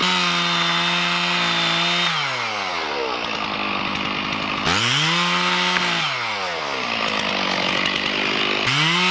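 Two-stroke chainsaw revved to full throttle and let back down to idle three times: held about two seconds at the start, about a second near the middle, and again near the end.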